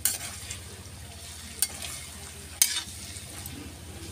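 Sliced onion and capsicum sizzling in oil in a kadhai while a spatula stirs them. The spatula scrapes sharply against the pan three times: at the start, about a second and a half in, and near the three-second mark.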